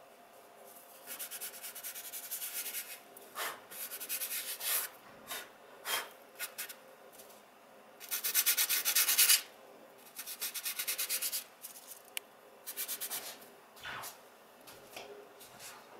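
Fingers rubbing dry pastel into a sheet of sandpaper: a scratchy rasp in quick back-and-forth strokes. It comes in bursts of a second or so, loudest about eight seconds in, with a few light taps between.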